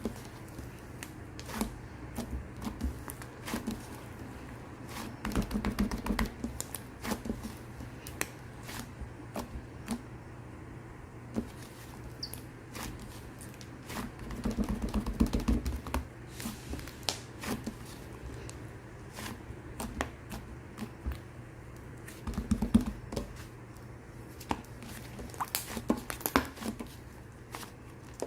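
Slime being squeezed and pressed by hand, making a string of small clicks and pops, with three spells of denser squishing.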